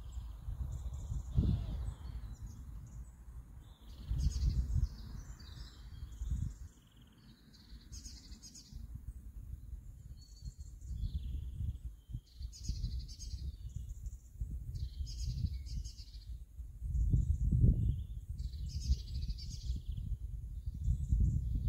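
Several small birds chirping and singing in repeated short phrases, over gusts of wind rumbling on the microphone. The wind swells loudest about a second in, again at about four seconds, and near the end.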